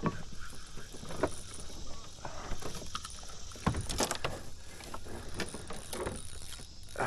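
Irregular light knocks and clicks from handling in a canoe, over a faint steady hiss.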